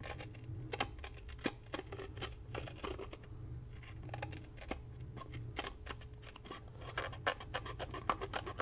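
X-Acto hobby knife cutting through an old, brittle paper speaker cone, giving a run of irregular small scratches and crackling ticks, over a steady low hum.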